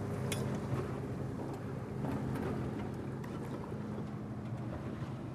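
Boat motor running steadily with a low, even hum, with a few light knocks, the clearest about a third of a second in.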